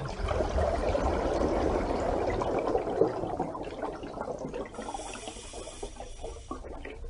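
Water rushing and splashing, louder in the first half and easing off about halfway through.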